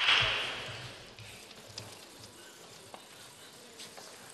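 Clapping in a large, echoing sports hall fading out over about the first second, then a quiet hall with a few faint, sparse taps.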